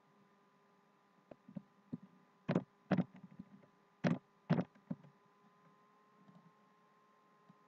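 Computer keyboard keystrokes and mouse clicks. A few faint clicks come first, then four louder sharp clicks in two pairs about a second and a half apart, over a steady faint hum.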